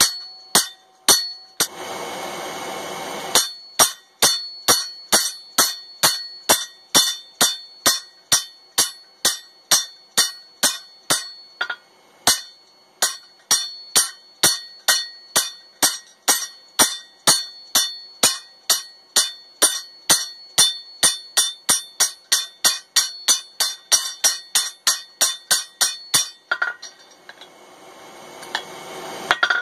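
Hand hammer striking a hot mild-steel tong blank on an anvil: steady blows about two a second, each ringing, until the blows stop a few seconds before the end. About two seconds in there is a short burst of hissing noise.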